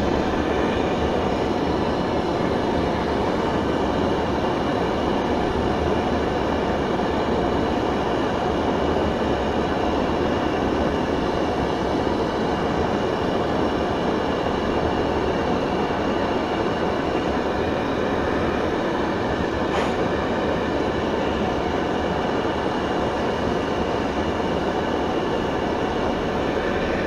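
Primus OmniLite Ti stove's burner running on butane/propane gas, burning steadily with an even rushing sound while it heats a pot of water toward the boil. A single faint click about twenty seconds in.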